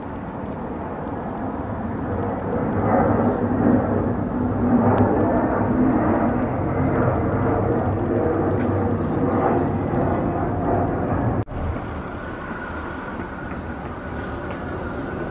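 Embraer 175 regional jet's turbofans running on final approach, gear down: a steady jet roar that swells as the airliner passes overhead. After a brief drop-out about eleven seconds in, a quieter roar with a thin steady whine is heard as it moves away.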